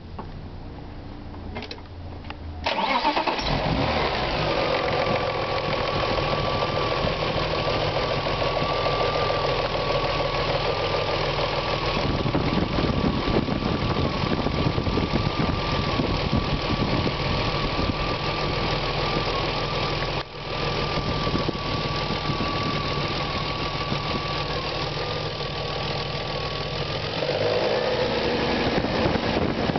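BMW E36 M3's S50B30 straight-six cranked on the starter, catching a little under three seconds in and settling to idle, with a steady high-pitched whine over the engine that fades out shortly before the end. The owner is unsure whether this noise comes from the VANOS unit or a bad timing chain.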